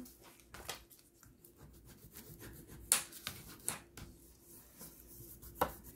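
Hands handling and pressing freshly glued cardstock: soft rubbing of paper with scattered light clicks and taps, the sharpest about three seconds in.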